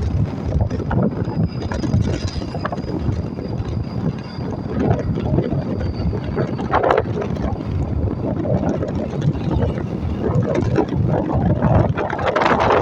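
Wind buffeting the microphone over the rumble of passing traffic.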